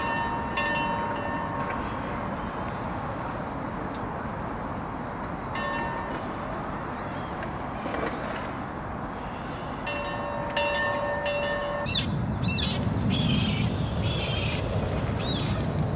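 Outdoor ambience with a steady rushing background, broken several times by a short, held, steady-pitched whistling tone, and a few quick chirps about twelve seconds in; the low rumble grows louder about ten and a half seconds in.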